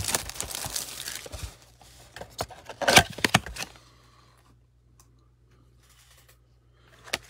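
Cardboard trading-card blaster box being handled and torn open: crinkling and tearing for the first second or so, then a loud tearing crackle about three seconds in, after which it goes quiet.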